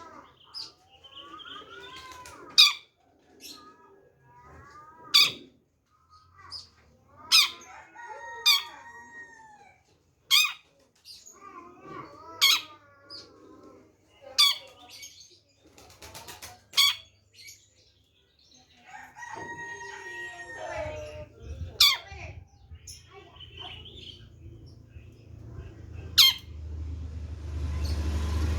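Long-tailed shrike (centet) singing: sharp, loud call notes repeated every second or two, mixed with warbling, gliding phrases. A low rumble builds in the background near the end.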